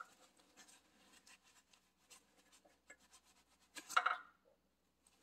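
A shop rag rubbing over a hydraulic quick-coupler in gloved hands, with faint scattered small clicks. About four seconds in comes a brief, louder metallic clatter as the coupler is handled.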